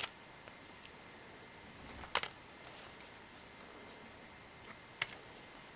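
Light clicks and taps of cardboard Christmas ornament discs being handled and knocked together. There are three sharp ones about two and a half seconds apart, the loudest a double click a little past two seconds in, over a faint steady hum.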